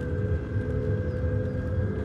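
Video game soundscape from a military shooter: a steady low rumble with a held, droning tone over it.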